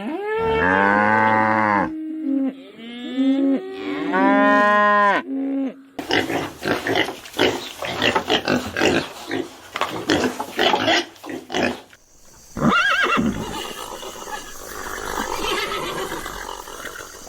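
A series of farm-animal calls: long pitched calls for the first six seconds or so, then a run of quick, short repeated calls, then a rougher stretch with a few more calls near the end.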